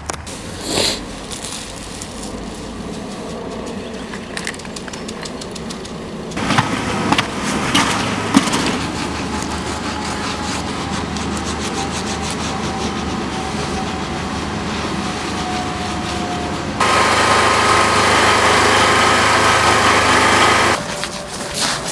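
Steady machine running, its noise shifting in level at abrupt changes, with a few knocks and scrapes; the loudest stretch, near the end, carries a steady hum.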